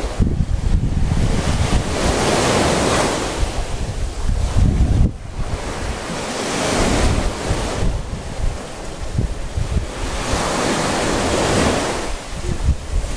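Small sea waves breaking and washing on the shore, the wash surging every four seconds or so, with wind buffeting the microphone as a low rumble.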